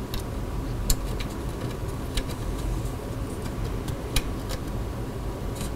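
Small screws being turned with a hex key into a graphics card's water-block backplate: irregular light metallic clicks and ticks, the sharpest about a second in and just past four seconds. A steady low hum runs underneath.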